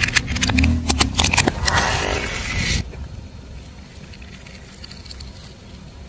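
Objects cracking and crunching under a car tyre: a quick string of sharp snaps, then a denser crunch that cuts off abruptly just under three seconds in. A low rumble, likely the car's engine and tyres, follows.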